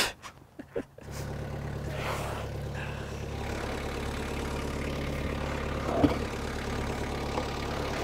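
Engine idling steadily, coming in suddenly about a second in, with a loud knock right at the end.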